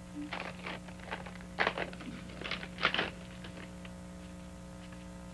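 Paper rustling as a telegram is opened and unfolded by hand: a handful of short rustles in the first three seconds, then only a steady low hum.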